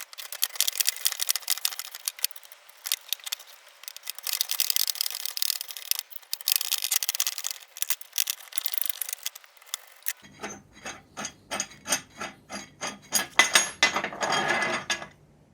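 Coil spring compressors being unwound off a rebuilt strut: fast metallic clicking and rasping from the tools. About ten seconds in the sound changes to separate metal clinks and knocks as parts and tools are handled.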